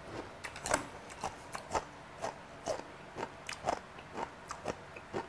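Someone chewing kimchi close to the microphone: a steady run of crisp, wet crunches, about three a second.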